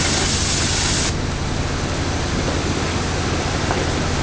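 High-pressure water jet hissing as it washes drilling mud off the steel drill pipe, cut off abruptly about a second in. Under it the drilling site's machinery runs with a steady low hum.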